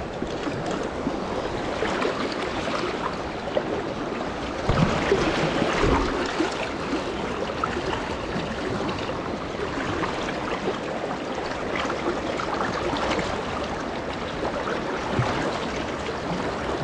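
River water rushing steadily around a wading angler, with two low bumps about five and six seconds in.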